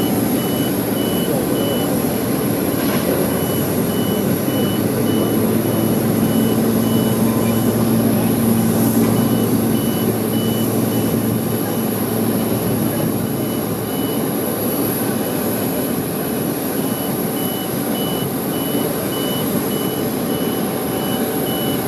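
Airport apron noise: steady loud jet-aircraft roar with a thin high whine, and a regular electronic beeping repeating all through, pausing briefly about midway.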